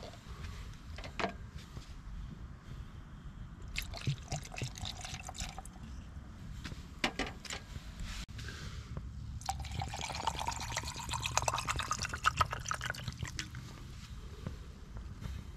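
Drink being mixed in a glass over a large ice ball: a few clinks, then soda water poured in for a gin rickey from about ten seconds in. The pour's pitch rises as the glass fills, with fizzing.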